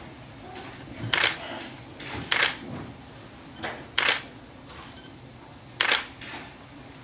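Camera shutter clicking: a string of sharp single shots, one every second or two, with fainter clicks between them.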